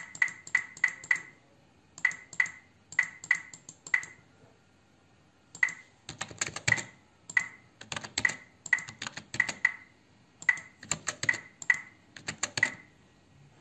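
Typing on a computer keyboard: quick, irregular key clicks in short runs with brief pauses between them, as numbers are entered.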